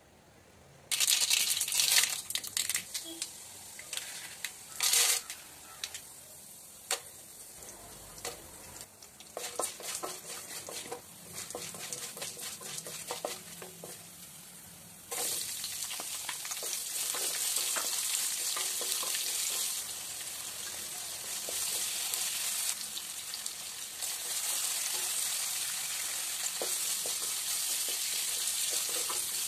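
Tempering frying in hot oil in an aluminium kadai: mustard seeds, dals and cashews sizzle with scattered crackles while a wooden spatula stirs. About fifteen seconds in a louder, steady sizzle takes over as sliced onions and curry leaves fry.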